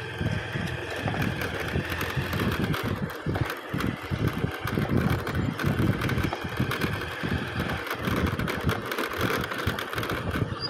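A pair of bullocks pulling a wooden bullock-racing cart at a run, with irregular thudding of hooves and knocking of the cart, over wind buffeting the microphone and a steady engine drone.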